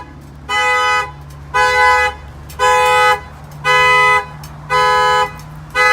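Chevy Silverado 2500's two-note horn blasting in a steady pulse, about one half-second honk per second, six in all: the Excalibur alarm has been tripped by a knock on the window and is sounding the horn.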